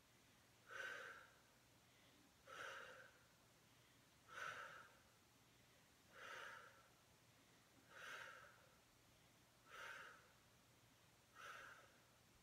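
A woman's breathing: faint, even exhales, seven of them about every two seconds, paced with slow leg lifts against a mini resistance band.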